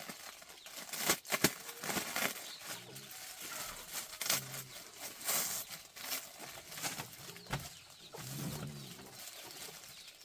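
Chickens clucking, with wings flapping and several sharp knocks scattered through.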